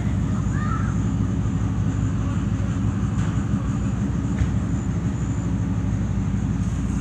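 A steady low mechanical hum and rumble, even in level throughout, with a faint short chirp about half a second in.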